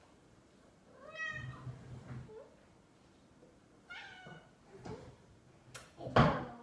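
A domestic cat meowing twice, each meow a short call rising then falling in pitch. A loud thump near the end.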